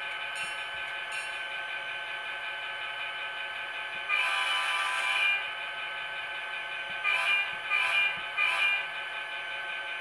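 ESU LokSound decoder sound from an N scale Kato SDP40F model diesel locomotive: a steady diesel engine idle played through the model's small speaker. About four seconds in the horn gives one long blast, then three short blasts near the end.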